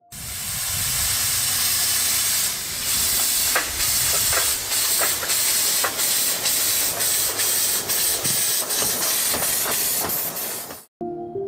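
Homemade miniature electric locomotive running along wire rails: a steady hiss from its small motor, with irregular clicks from the wheels on the track. The sound cuts off abruptly near the end.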